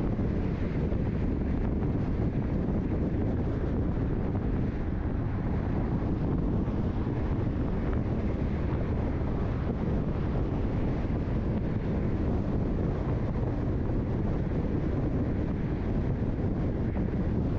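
Steady road and wind noise from a car driving at highway speed, a constant low rush with no change in pitch.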